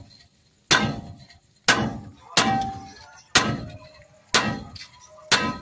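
Hammer blows driving a new wheel stud bolt into a Howo dump truck's hub flange: six sharp metal-on-metal strikes about a second apart, each with a short ring.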